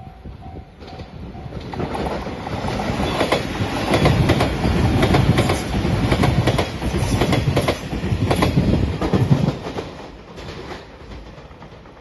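A level-crossing bell rings in short pulses for the first second. Then a five-car JR Shikoku 8000 series electric limited express passes close by at speed, its wheels clacking over the rail joints, loudest in the middle. The sound fades about ten seconds in.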